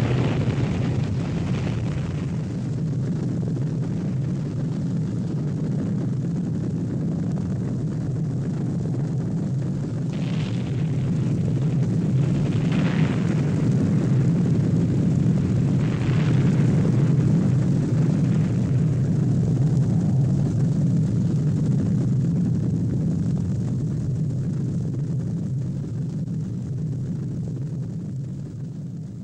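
Long, deep rumble of a nuclear explosion sound effect on a film soundtrack, steady throughout with a few faint swells near the middle, fading away over the last few seconds.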